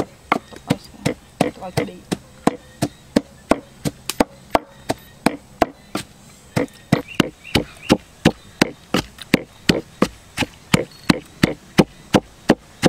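Wooden pestle pounding steadily in a clay mortar: sharp, even knocks at about three a second.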